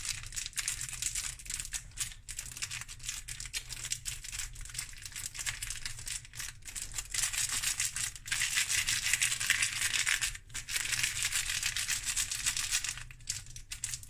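Flake chocolate bar being crushed inside its plastic wrapper: the wrapper crinkles and the flaky chocolate crumbles in a continuous, dense crackle. It grows louder in the second half, with a brief break about ten seconds in.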